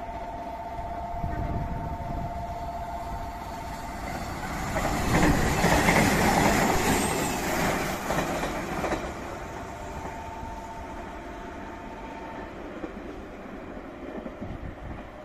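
Nishitetsu 5000-series electric train (set 5113F) passing through a station without stopping. Its rolling noise swells, is loudest from about five to nine seconds in, and then fades away.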